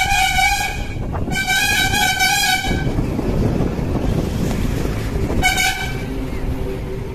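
A bus horn honking: a long blast ending about a second in, a second blast of about a second and a half, and a short toot about five and a half seconds in. Between blasts there is a steady low rumble of engine and road noise from the moving bus.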